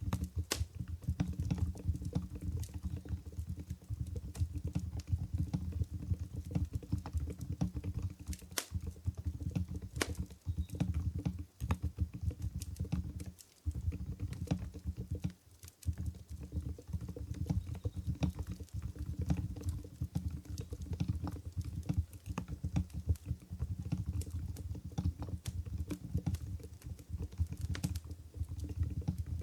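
Continuous fast typing on an Mstone Groove GV10 keyboard with silent Coral 45 g switches: soft, muted keystrokes in quick irregular runs, pausing briefly twice in the middle. Under it runs a low campfire ambience with a few sharper crackles.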